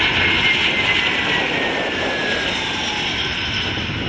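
Airbus A321 jet airliner on short final passing close by, its twin turbofans rushing and whining, the whine falling steadily in pitch as it goes past and the sound slowly easing.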